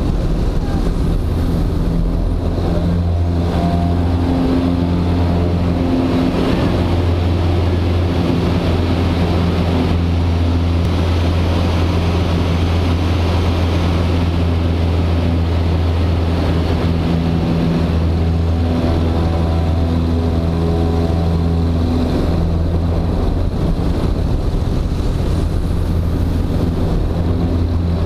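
Super Decathlon's four-cylinder Lycoming engine and propeller droning steadily, heard from inside the cockpit, with its pitch shifting slightly a few times as the aircraft manoeuvres. Airflow rushes over the cabin and grows louder in the middle.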